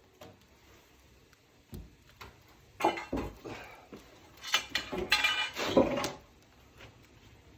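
Irregular knocks and clattering, loudest about three to six seconds in.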